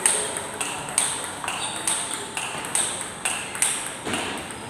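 Celluloid-style table tennis ball clicking off the rackets and the table in a rally, about two sharp hits a second. The rally ends with a last hit about four seconds in.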